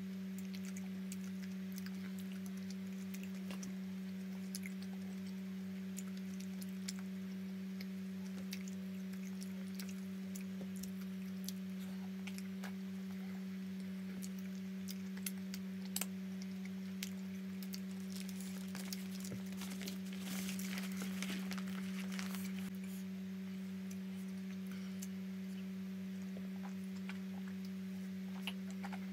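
Close chewing and small wet mouth clicks from eating bread, over a steady low hum. About twenty seconds in there is a denser crackly stretch of about two seconds.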